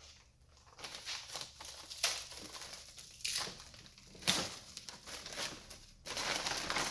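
Packaging being handled and pulled open: irregular crinkling and rustling, with louder crinkles about three seconds in, just after four seconds and near the end.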